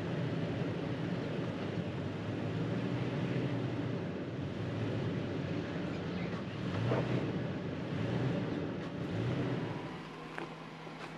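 Off-road truck engine running, with a couple of rises in revs about two-thirds of the way in; it gets quieter near the end.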